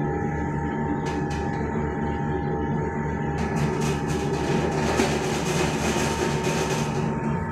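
Semi-automatic noodle-making machine running: its motor and roller drive give a steady hum with a low rhythmic rumble. From about three and a half seconds in, a louder hiss joins it for a few seconds.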